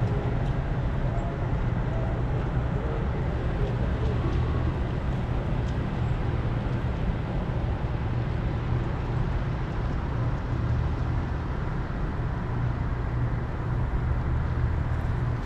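Road traffic: cars driving along the street beside the railroad crossing, over a steady low rumble.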